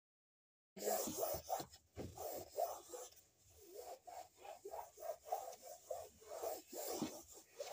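A cloth being rubbed over a hard floor by hand, in short, irregular wiping strokes that start about a second in.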